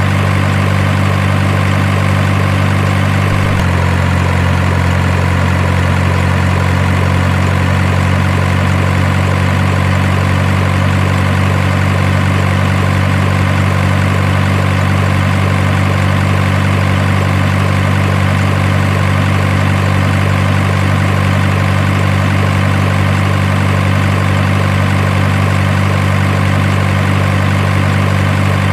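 Steady, loud low engine idle drone, like a heavy truck's diesel, with a slight change in its pitch about three and a half seconds in.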